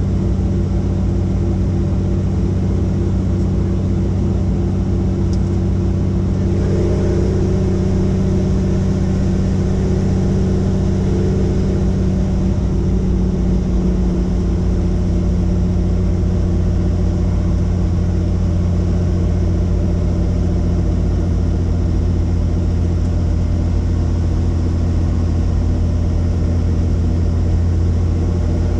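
Helicopter turbine engine and rotor running, a loud steady hum heard from on board. Its tones shift and the low hum grows stronger about halfway through.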